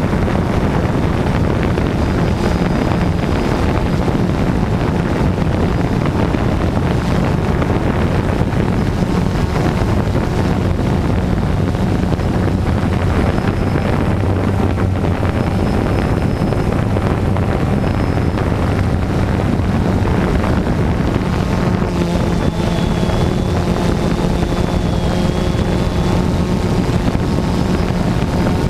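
DJI Phantom 2 quadcopter's motors and propellers humming steadily in flight, with wind buffeting the microphone.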